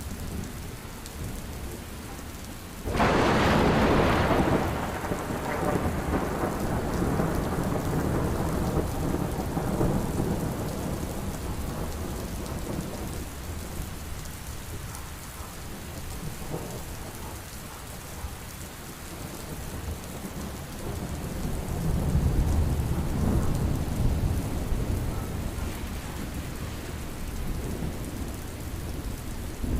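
Heavy rain falling steadily, with thunder: a sudden loud clap about three seconds in that rumbles away over several seconds, and a lower roll of thunder about two-thirds of the way through.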